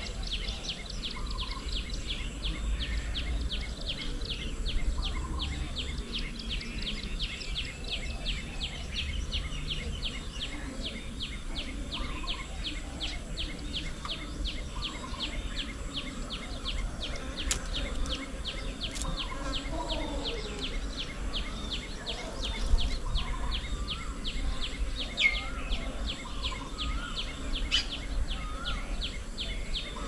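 An insect chirping in a fast, even pulse of about three or four high chirps a second, with a few short bird calls scattered through the second half over a low background rumble.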